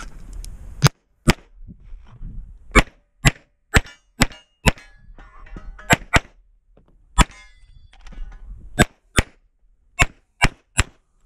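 Pistol shots from a 9mm CZ Shadow 2 Optics Ready, about fifteen in all, fired in pairs and short strings with pauses between. A short metallic ring follows a few of the shots.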